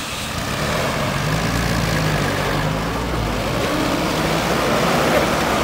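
WWII military jeep's four-cylinder engine running as it is driven, the engine note shifting in pitch.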